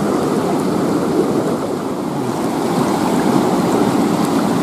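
Shallow, fast-flowing river running over rocks: a steady rush of water.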